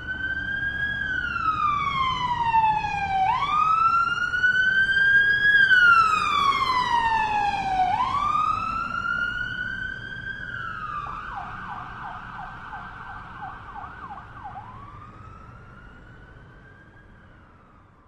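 An emergency vehicle siren wailing in slow falling and rising sweeps. About eleven seconds in it switches to a fast yelp, then goes back to a wail as it fades away.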